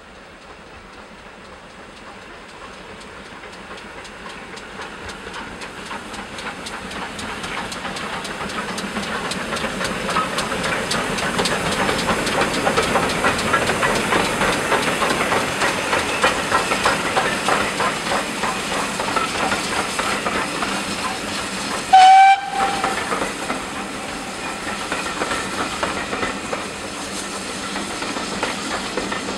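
Two steam locomotives double-heading a passenger train approach and pass with steady chuffing, growing louder as they near. A short, sharp steam whistle blast comes about three-quarters of the way through and is the loudest sound. After it the coaches' wheels clatter over the rail joints as they roll past.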